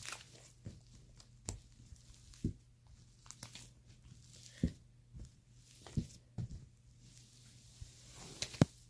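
Slime-making materials being handled: irregular soft knocks and clicks, with a brief crinkling, tearing sound near the end.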